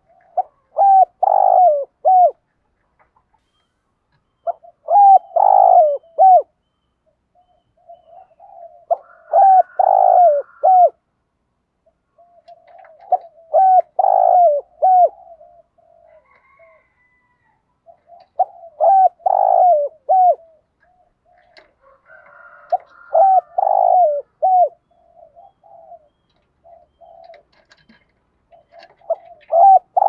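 Spotted dove cooing its calling song, a phrase of several coos repeated about every four seconds, seven times, with fainter cooing between the phrases. It is a caged decoy bird's call, sung to draw in other doves.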